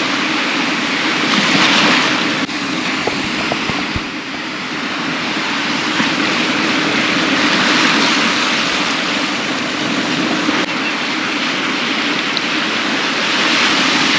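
Small ocean surf breaking and washing up the beach, a steady rush that swells and eases as each wave comes in, louder about two seconds in, again around eight seconds, and near the end.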